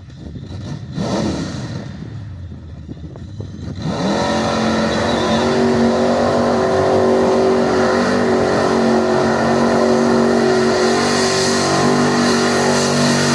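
Lifted street-class Chevy pickup's engine revving under heavy load as the truck pulls through a mud bog pit. There is a short rising rev about a second in, then from about four seconds in the engine is held loud at high, steady revs.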